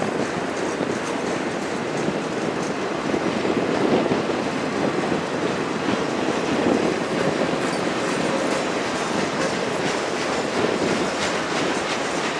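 Freight train's autorack cars and boxcars rolling past at speed, a steady rumble of steel wheels with irregular clacking over rail joints and a faint thin wheel squeal for a moment near the middle.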